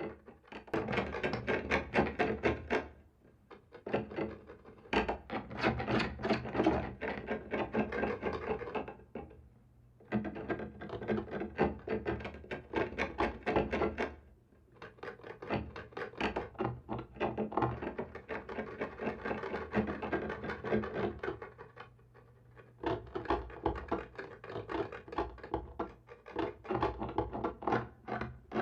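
Scratching on a wall: dense scraping made of many fine clicks, in about five bouts of several seconds each, with brief pauses between them.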